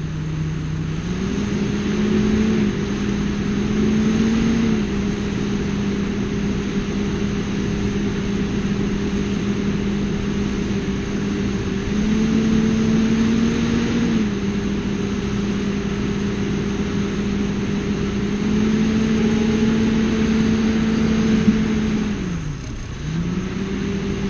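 Engine running steadily under varying throttle, its pitch stepping up and down several times, then dropping sharply about 22 seconds in and coming back up.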